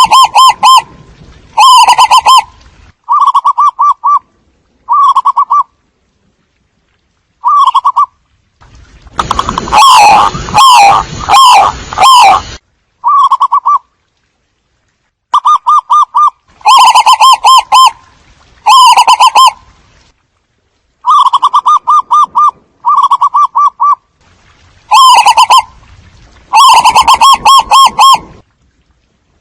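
Zebra doves cooing: repeated bursts of rapid staccato notes, each burst about a second long, with short gaps between. From about nine to twelve seconds in, a few bursts sound rougher and noisier.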